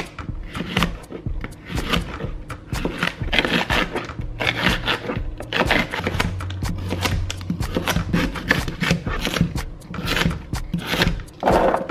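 Kitchen knife chopping courgette, carrot and sweet potato on a cutting board: a steady run of short, sharp chops, with background music under it.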